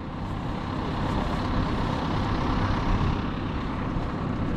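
An engine running steadily with a low rumble, most likely a piece of the crew's equipment such as a loader.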